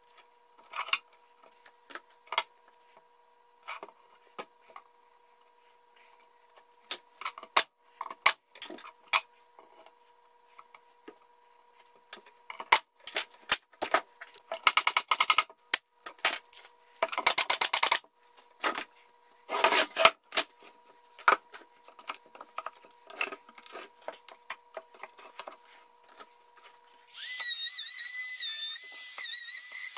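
Wooden parts and tools handled on a workbench: scattered knocks and taps with a few brief rattling clatters. Near the end a corded power tool starts and runs with a wavering high whine.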